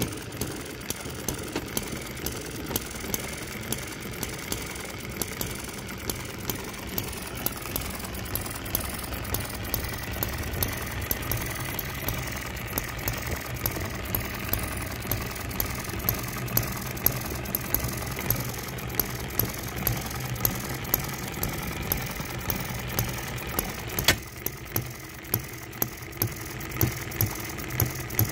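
Microcosm M94 single-cylinder hit-and-miss model engine running: a steady rapid ticking of its mechanism, with a sharper pop on each firing stroke about twice a second. Near the end there is one sharp click, after which the background ticking drops and the firing pops stand out.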